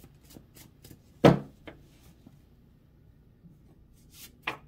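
A deck of oracle cards being handled and cut: light clicks and rustles, with one sharp knock about a second in and a smaller one just after, then a few more clicks near the end.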